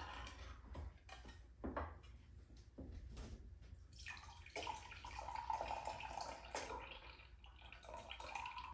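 Pineapple juice pouring from a can into a glass measuring cup, a faint, steady trickle for the last four seconds. A few light knocks come before the pour starts.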